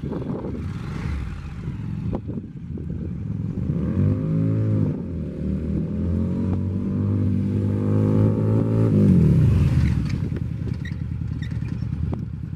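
Motorcycle engine accelerating. Its pitch rises, dips once about five seconds in, climbs slowly, then drops away at about nine seconds.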